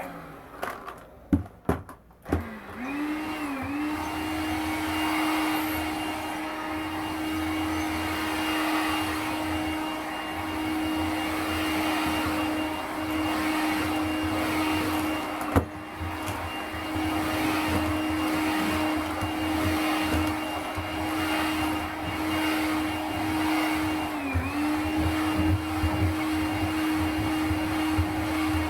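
Makita cordless stick vacuum cleaner with its carpet nozzle: a few clicks as it is handled and switched on, then the motor spins up and runs with a steady whine while the nozzle is pushed over the floor. There is one sharp click partway through and a brief dip in the motor's pitch near the end.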